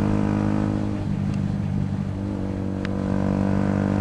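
Yamaha YZF-R125's single-cylinder 125 cc four-stroke engine running at steady road speed, easing off about a second in and picking back up a little after halfway.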